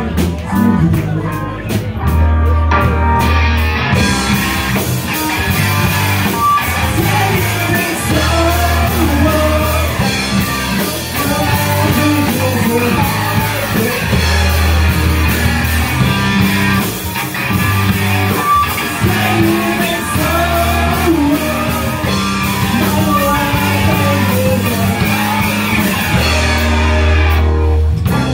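A punk/emo rock band playing live: a man singing over electric guitar, bass guitar and a drum kit, with the cymbals filling in densely from about four seconds in.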